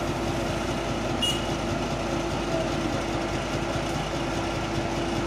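Diesel engine of a Komatsu PC71 mini excavator running steadily with a constant hum. A brief sharp sound about a second in.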